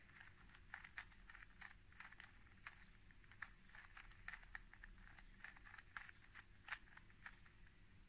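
Plastic stickerless 3x3 puzzle cube being turned quickly by hand: an irregular run of faint clicks and clacks, several a second, as its layers snap round.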